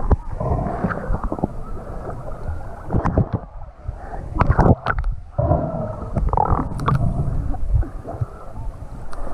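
Muffled lake water sloshing and gurgling around a waterproof action camera as it dips between the surface and underwater, with a few sharp splashes.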